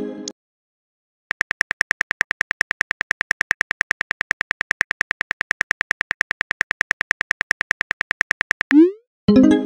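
Simulated phone-keyboard typing clicks from a texting-story app: a rapid, even run of ticks for about seven seconds. Near the end comes a short rising swoosh as the message sends, then a brief chime-like tone.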